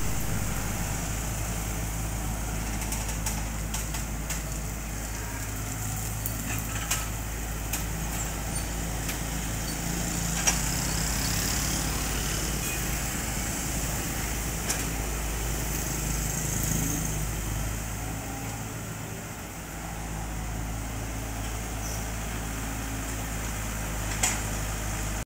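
Diesel engine of a 2013 Komatsu PC78-6 hydraulic excavator running steadily as the machine works, with a few sharp knocks along the way.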